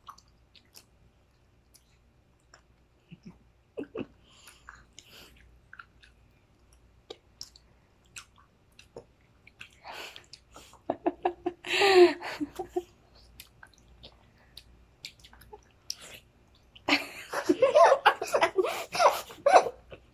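People biting into and chewing whole ripe mangoes, with scattered wet clicks and squishing sounds. There are two louder stretches of laughter, one at about twelve seconds and a longer one near the end.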